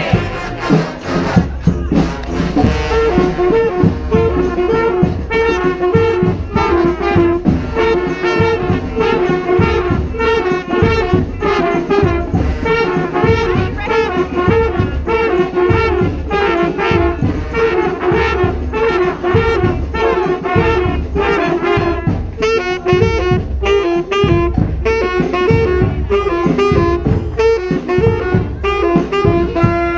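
Brass street band playing an up-tempo tune: saxophones, trumpets and trombones over marching drums, with a steady driving beat.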